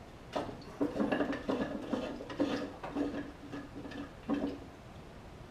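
Screw-on plastic lid of a small coolant tank being unscrewed by hand, creaking and grinding in a series of about eight short twists over some four seconds, after the tank has been depressurized.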